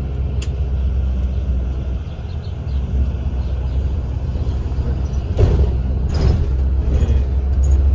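Shuttle bus driving, heard from inside the cabin: a steady low engine and road rumble, with two brief louder sounds about five and six seconds in.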